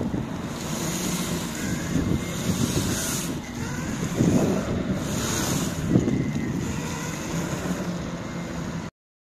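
Wind buffeting the microphone over the rumble of an electric all-terrain skateboard's wheels rolling on asphalt, swelling in gusts. It cuts off abruptly near the end.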